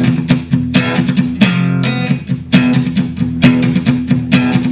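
Live pop-rock instrumental passage: electric guitar playing over a steady, even beat with a bass line underneath.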